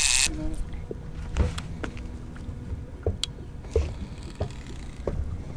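A loud hiss cuts off just after the start. Then the low rumble of a boat on the water, with scattered light knocks and clicks.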